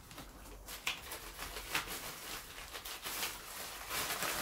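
Rustling and scraping of a nylon tripod carry case being handled and opened, with the tripod drawn out of it; irregular scrapes and crinkles, louder near the end.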